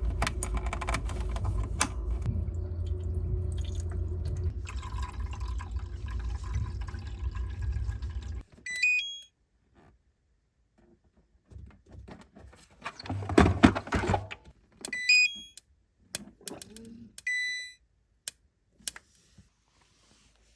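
Steady rush of running liquid with a low rumble, which cuts off about eight seconds in. It is followed by short electronic appliance beeps, a few rising beep sequences and one held tone, mixed with clicks and handling clatter.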